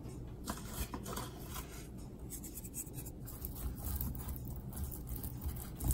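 Faint, irregular scratching and rubbing from hands sprinkling salt over seasoned raw beef ribs.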